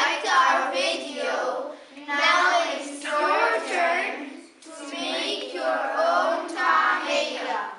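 A group of children singing together in unison, in three phrases with short breaks between them.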